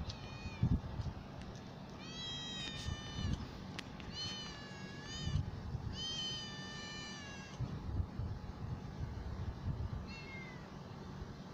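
Young tabby cat meowing repeatedly: a short meow at the start, three long drawn-out meows in the middle, and a short one near the end.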